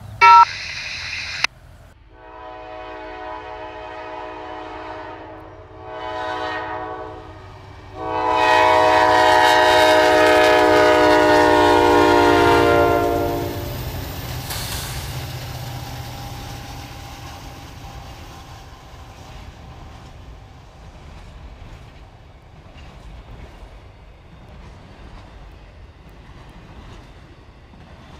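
Diesel freight locomotive air horn blowing a crossing signal: a long blast, a short one, then a long, loud blast of about five seconds. Then the freight train rolls past, its rumble slowly fading.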